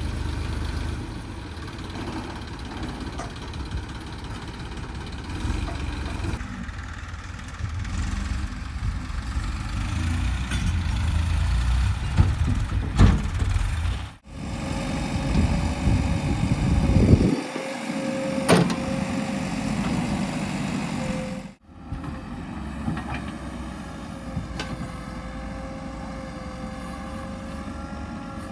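Heavy diesel engines of earthmoving machinery running, the load rising and falling as soil is dug and loaded, with a steady whine over the engine noise in the second half. The sound cuts out abruptly twice.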